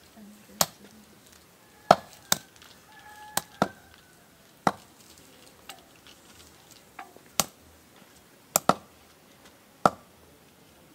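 Meat cleaver chopping pork on a wooden chopping block: about ten sharp, irregularly spaced chops, some coming in quick pairs.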